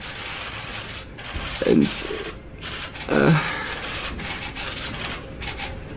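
A man crying and struggling to speak: one choked word, then sobbing breaths, over steady room noise.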